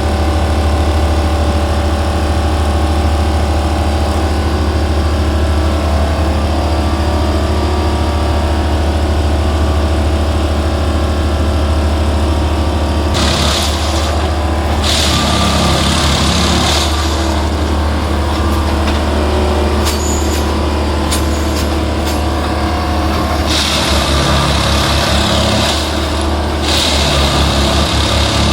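Plasser & Theurer track maintenance machine working: its diesel engine runs with a steady low drone. Loud hissing comes in twice, about halfway through for a few seconds and again near the end, with a few sharp clicks between.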